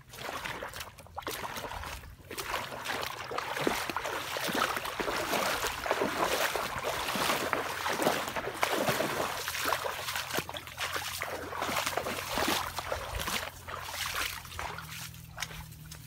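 A person wading through shallow muddy water, the water splashing and sloshing in uneven surges with each stride, dying down near the end.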